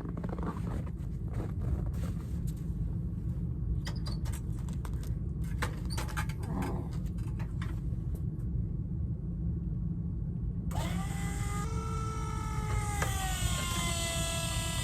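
A steady low rumble with scattered clicks, then about eleven seconds in a battery-powered electric motor on a dump trailer starts with a whine that sags in pitch and recovers. It strains up again and settles a couple of seconds later, running off a cold-soaked battery in sub-zero temperatures.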